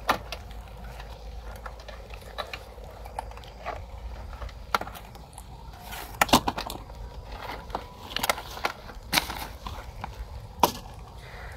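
Handling of a wire-mesh rat trap in a plastic sack: scattered clicks, knocks and rustling, with a cluster of sharper clacks around the middle and single ones later on.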